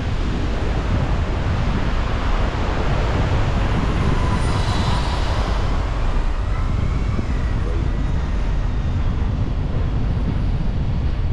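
Wind rumbling on the microphone over a steady rush of outdoor road noise, with faint tones in the middle.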